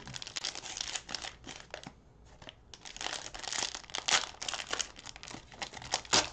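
Plastic cellophane wrapper of a 2020-21 Panini Prizm basketball card cello pack crinkling as hands squeeze and tear it open. There is a lull about two seconds in, then the crinkling gets louder and denser.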